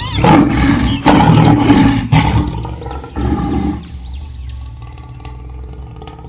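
Tiger roaring and snarling in attack, loudest over the first two seconds, then dying away into a long, fading growl.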